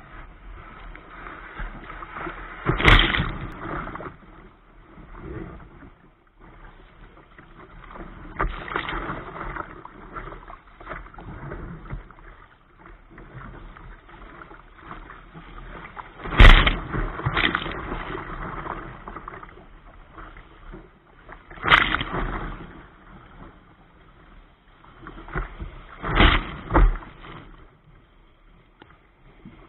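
Sea surf around a kayak's bow in strong wind: a steady rush of wind and churning water, broken by several sudden loud splashes as waves slap the hull and spray over the bow-mounted microphone, the loudest about halfway through.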